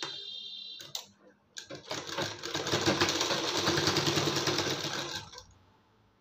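Sewing machine stitching fast and steady for about three and a half seconds, then stopping, as a folded binding strip is sewn around a blouse neckline. A short high whine and a couple of clicks come before the run starts.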